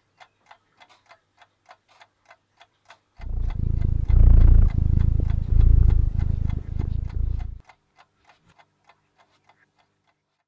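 Wall clock ticking evenly, about three ticks a second, fading out near the end. For about four seconds in the middle a loud low rumble in uneven swells drowns the ticking.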